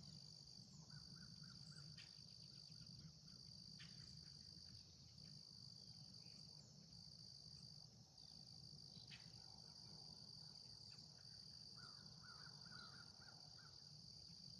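Faint outdoor ambience: a steady high insect chirring with short regular breaks, and birds calling. A quick run of repeated notes comes about a second in and again near the end.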